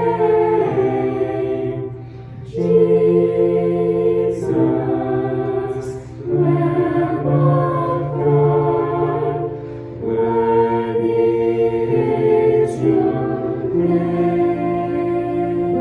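A choir singing a slow hymn in long held phrases, each a few seconds long, with short breaths between them.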